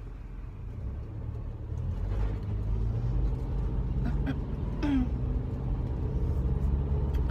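A 2009 Subaru Forester's flat-four engine and road noise heard from inside the cabin while driving. The low rumble grows louder over the first three seconds, then holds steady.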